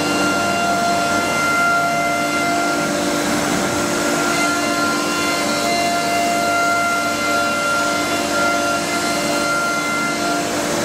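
CNC nesting router carving decorative panels into an MDF board. The spindle's cut makes a steady machine sound: several high steady whine tones over a continuous rushing noise, with the tones fading in and out a little.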